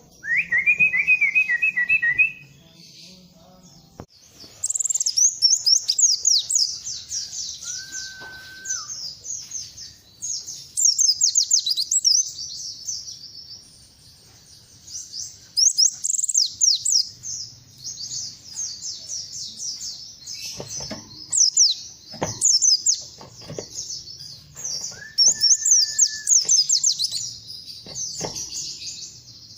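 Pleci (white-eye) songbird singing: long phrases of rapid, very high twittering chatter, repeated with short pauses. A short lower trill comes right at the start, and two brief steady whistled notes come about 8 and 25 seconds in.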